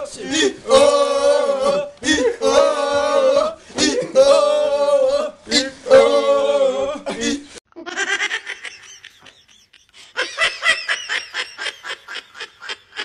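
A group of young men chanting together in loud held notes with short breaks for about seven seconds. After a brief lull, a quick run of laughter, about five or six bursts a second.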